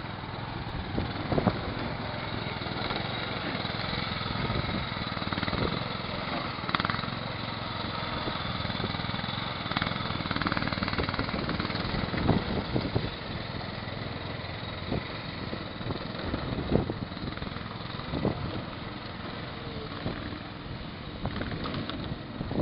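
Small engine of a miniature replica tank running steadily as it drives over dirt, with occasional short knocks.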